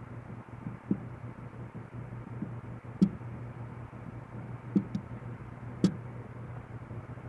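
Light clicks and knocks, about five of them and the sharpest about three seconds in, from handling small screws and airgun parts during reassembly, over a steady low hum.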